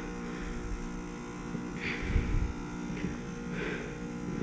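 Carrier Comfort heat pump outdoor unit running with a steady electric hum, with a few soft brief rustles over it.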